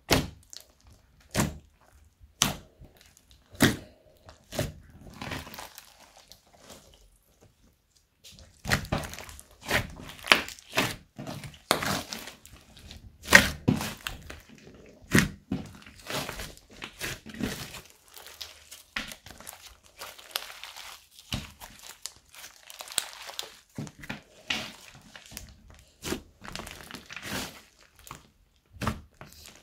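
Thick slime squished, pressed and folded by hand, making sharp pops and clicks. These come about once a second at first, then turn into denser crackling and squishing from about eight seconds in.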